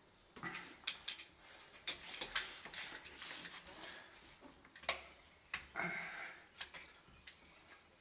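Irregular sharp clicks, taps and short scrapes of a screwdriver and a plastic wall-socket mechanism with its metal mounting frame being worked into a flush wall box and pressed into place, with a longer scrape near the middle.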